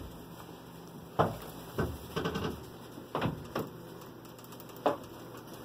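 Irregular clicks and light rattling knocks from a wire-mesh rabbit cage and its galvanised metal feeder, about half a dozen sharp knocks spread over a few seconds.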